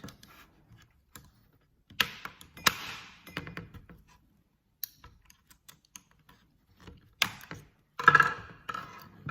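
Keyboard case being pried apart with a tool: scattered sharp clicks and short scraping, then a loud cluster of snaps about eight seconds in as the case comes open.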